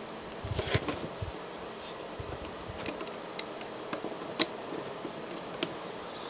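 Light clicks and taps of small plastic parts being handled as a rubber drive ring is fitted into a DVD player's loading mechanism, with a brief rustle about a second in and a sharper click past the middle.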